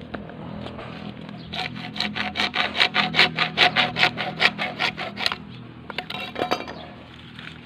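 Hand hacksaw cutting through blue PVC water pipe, with quick back-and-forth strokes about four or five a second. They start about a second and a half in and run to about five seconds, and a few last strokes come near six seconds as the pipe is cut through.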